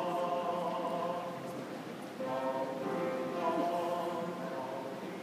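Chamber choir singing held chords in two phrases, with a short break about two seconds in.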